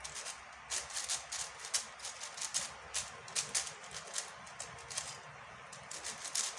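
Plastic layers of a MoYu MF5S 5x5 speed cube clicking and clacking as it is turned quickly by hand, an uneven run of several clicks a second.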